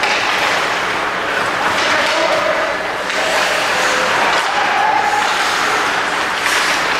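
Ice hockey game in play: a steady wash of skates scraping and carving the ice, with short shouts from voices over it.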